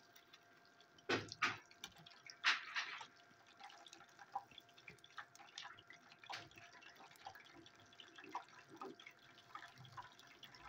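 Fish pieces frying in hot oil in a steel pan: scattered crackling and spitting, with a few louder sharp pops about one to three seconds in.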